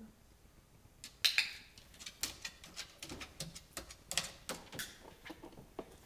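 A chicken's claws tapping and scrabbling on a hard wooden ramp and tabletop as she crosses the agility course: a run of irregular sharp taps and clicks, loudest about a second in and again about four seconds in.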